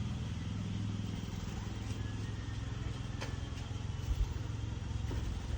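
A steady low motor hum with a few faint clicks.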